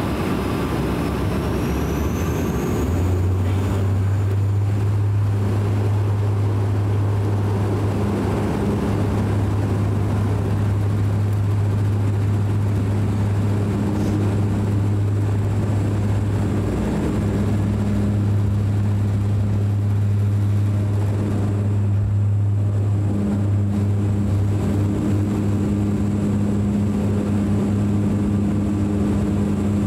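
Cabin sound of a DHC8-Q400 turboprop's two Pratt & Whitney PW150A engines going to takeoff power: a turbine whine rises in pitch over the first two seconds, then a steady low propeller drone sets in about three seconds in and holds over the rush of the takeoff roll and climb-out.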